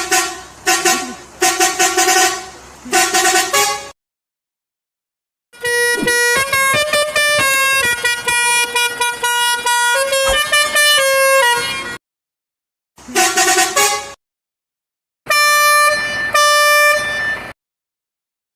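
Musical multi-tone bus horns in several short clips separated by dead silence. First come short repeated blasts, then a horn plays a stepped tune of changing notes for about six seconds, then a short burst and a few longer held notes.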